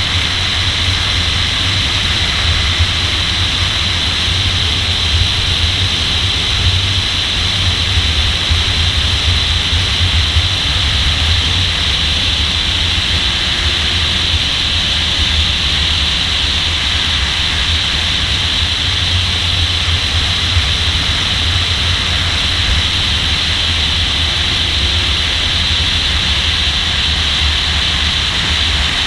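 A Nissan Z sports car running at speed on track, heard from a camera mounted on its hood: a steady rush of wind and road noise over a low rumble, with no clear rise or fall in engine pitch.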